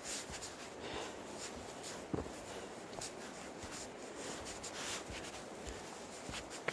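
Faint rustling and scraping with a few soft knocks, one about two seconds in and another near the end.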